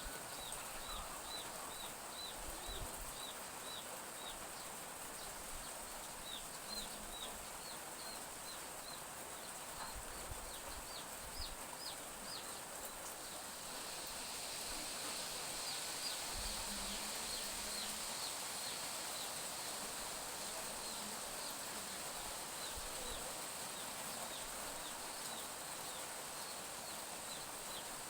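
Chicks peeping in a steady run of short, high, falling cheeps, about three a second, over a steady high hiss that grows louder about halfway through.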